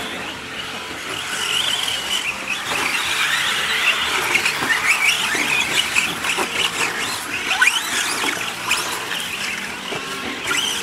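Several radio-controlled short-course model trucks racing together, their motors and gears whining in overlapping tones that rise and fall in pitch as they speed up and slow down.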